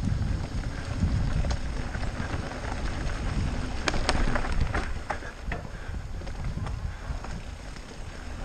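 E-bike rolling along a leaf-covered dirt trail: wind rumble on the camera microphone and tyre crunch over leaves and twigs, with a few sharp clicks and rattles about four seconds in. The rumble eases a little after about five seconds.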